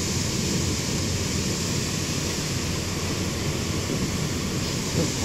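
Severe thunderstorm wind blowing hard with rain, a steady rushing noise.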